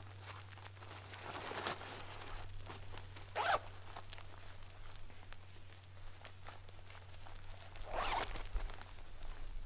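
Breath blowing in short gusts into a smouldering tinder bundle to bring it to flame: three puffs several seconds apart, the last the longest.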